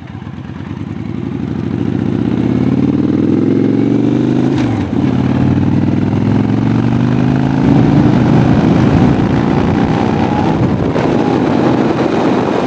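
V-twin cruiser motorcycle engine, a Victory Vegas 8-Ball, pulling hard under acceleration. Its pitch climbs, drops at a gear change about five seconds in, climbs again, and changes gear once more near eight seconds.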